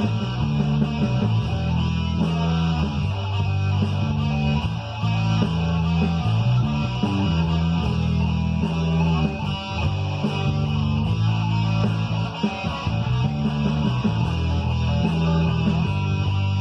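Guitar played along to a rock backing track with bass guitar and a steady beat.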